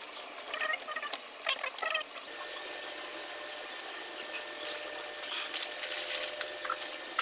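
Short squeaky chirps and clicks for about two seconds, then a steady faint room hum with a thin high tone and a few light clicks and knocks as packaged goods are handled and set down.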